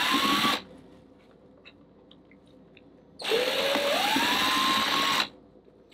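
DeWalt cordless drill with a step bit boring the switch hole through a cabinet panel in short bursts. A brief run at the start is followed, after a pause of about two and a half seconds, by a longer run of about two seconds, the motor's whine rising as it spins up and then holding steady. The hole is drilled a little at a time and tested so that it does not come out too big.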